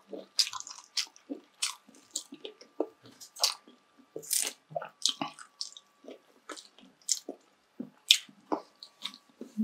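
A person chewing crispy deep-fried pork close to the microphone: irregular crunches and mouth clicks, a couple each second.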